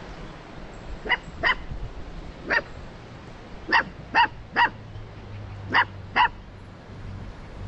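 Bhotiya puppy barking in short, high yips, eight barks in all, coming in a pair, a single, a quick three and a final pair.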